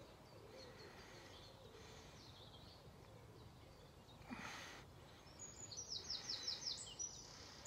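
Faint outdoor birdsong, with a rapid high trill of quickly repeated notes lasting about a second and a half near the end. A brief rustle sounds about halfway through.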